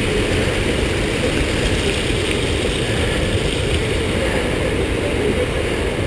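Rushing water of a waterfall close by: a loud, steady roar, heaviest in the low rumble.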